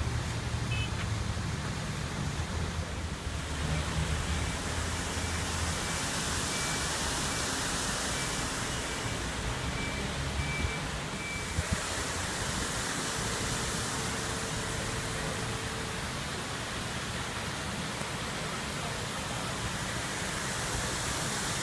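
A mobile crane's diesel engine running with a low rumble under a steady rushing noise as it holds a steel footbridge; the rumble fades about halfway through, leaving the rushing noise, and a faint repeated beep sounds during the first half.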